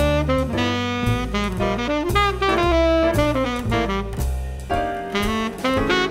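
Ishimori WoodStone New Vintage tenor saxophone playing a jazz melody, a running line of quick notes moving up and down the range, with a short breath break about four and a half seconds in. The horn responds in all ranges, a sign that its pads are sealing as they should.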